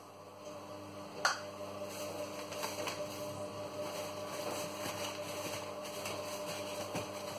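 A sharp click about a second in, then a steady hum from the electric hob heating a frying pan of oil, with faint scattered crackles. Paper towel rustles near the end.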